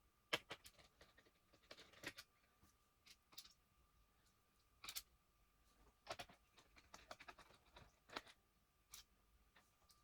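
Faint, irregular small clicks and scrapes of hands and tools handling a laptop's casing and parts during disassembly, over a faint steady high tone.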